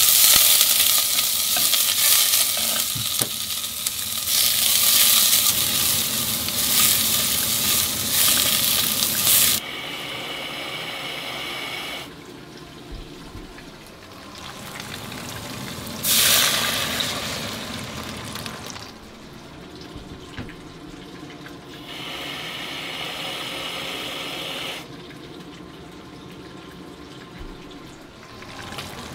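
Food sizzling as it is stirred on a gas stove; the hiss stops suddenly about ten seconds in. Later, water runs briefly from a kitchen tap into a bowl at the sink.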